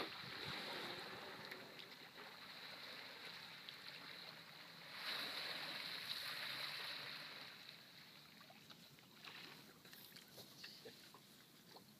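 Faint open-water noise around a small canoe: sea water lapping and wind. The noise swells for a couple of seconds about five seconds in.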